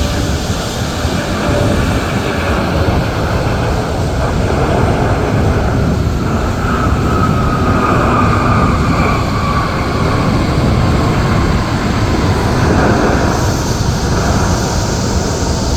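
Jet airliner's engines running loud and steady as it passes, with a whine that falls slowly in pitch through the middle.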